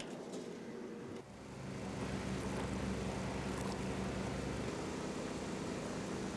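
A steady engine drone with low humming tones over a hiss, which gets louder about a second in.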